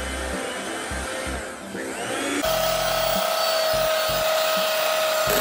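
Electric hand mixer running with its beaters in a bowl of whipped egg whites while egg yolk mixture is poured in. Its steady motor whine becomes more prominent about halfway through.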